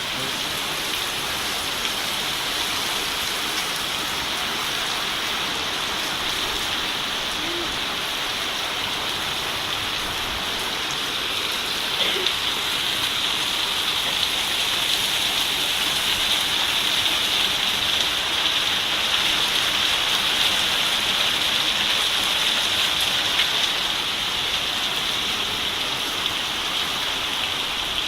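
Steady rain falling and pattering on surfaces, growing a little louder about twelve seconds in.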